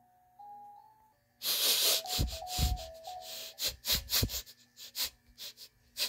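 Lion cub sniffing, a sound effect: a long loud sniff about a second and a half in, then a run of short, quick sniffs, after a few brief musical notes.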